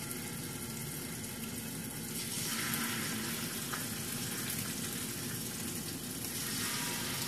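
Marinated shrimp sizzling in hot olive oil in a stovetop pan, a steady frying hiss that gets a little louder about two and a half seconds in.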